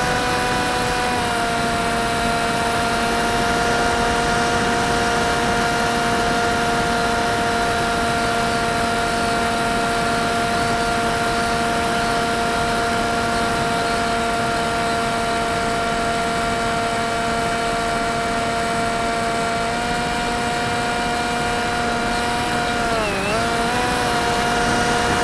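Electric motor and propeller of a Typhoon 430 mini flying wing whining steadily in flight, with a rush of wind over the onboard camera. Near the end the pitch drops briefly and climbs back up.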